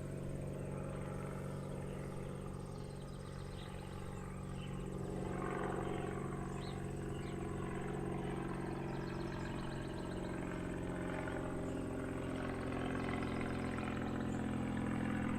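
Airplane engine sound effect: a steady drone that thickens and grows louder about five seconds in, then keeps slowly building.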